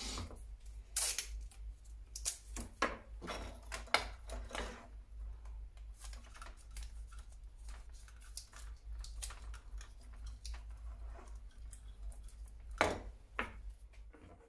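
Adhesive tape being pulled off the roll, torn and wrapped around lamp wires, heard as a run of short crackles and clicks of handling, with a louder cluster near the end. A steady low hum runs underneath.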